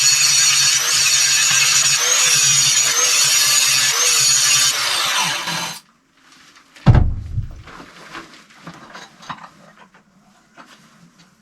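Angle grinder with an abrasive disc grinding the edges of a steel tong blank, its whine dipping in pitch every second or so as it is pressed into the metal. It shuts off about six seconds in, followed by a heavy thud and light clatter of metal being set down and handled.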